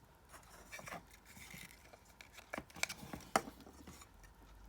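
Small plastic toy pieces and packaging being handled on a table: a few light clicks and taps with faint rustling.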